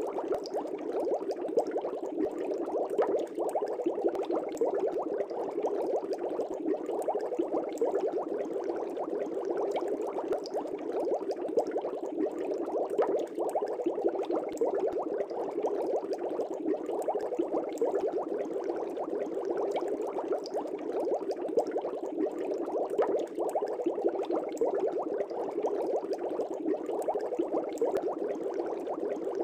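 Aquarium air bubbles bubbling steadily in a fish tank: a continuous dense stream of small pops and gurgles with no pauses.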